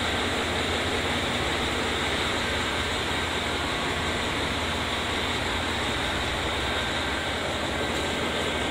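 Steady hum and hiss of trains standing idle at a station platform, with no sudden noises.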